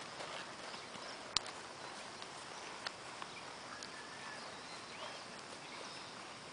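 A horse's hooves trotting on the ground, faint and uneven, with a sharper hoof strike about a second and a half in.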